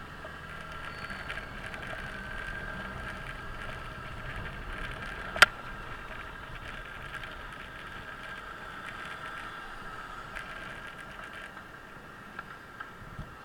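Riding noise from a Suzuki Burgman 650 scooter in motion: steady wind rush with the parallel-twin engine running underneath and a steady high tone over it. One sharp click about five seconds in, and a few softer ticks near the end.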